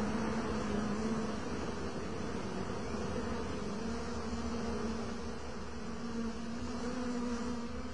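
Many flies buzzing together as a swarm: a steady drone with a hum held at one low pitch.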